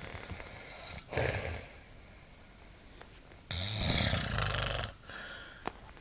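A man snoring in his sleep. There is a short snore about a second in, then a longer, louder one lasting about a second and a half.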